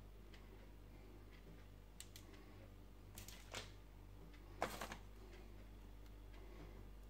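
Foil ground-coffee bags being handled and set down on a stove top: a few scattered crinkles and light taps, the loudest cluster about four and a half seconds in, over a faint steady electrical hum.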